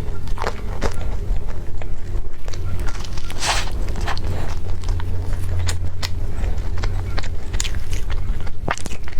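Biting and chewing food close to the microphone: irregular crisp clicks and crunches, the loudest about three and a half seconds in, over a steady low hum.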